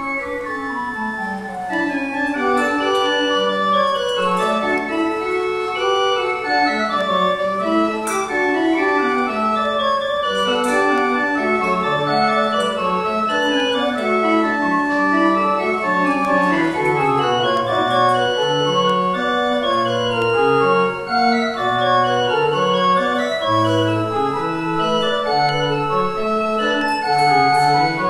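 Church organ playing a postlude to close the service: a busy piece of many moving notes over a bass line that steps up and down, at a steady full volume.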